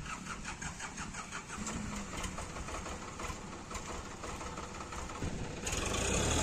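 Diesel tractor engine being cranked by its starter motor, an even, rapid churning, as it struggles to start after running out of diesel. About five and a half seconds in it catches and runs louder.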